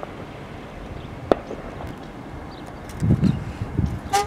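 Freight cars moving through a rail yard: scattered sharp metallic clanks over a steady background, the loudest just before the end with a brief ring. Low rumbling gusts of wind on the microphone come in past the middle.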